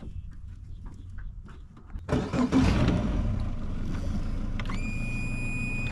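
Boat's outboard motor starts about two seconds in and settles into a steady run. A steady high beep comes in near the end.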